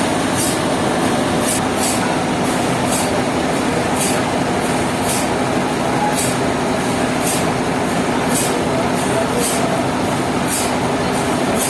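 Sawmill machinery running steadily under load, with a hiss that comes back about twice a second.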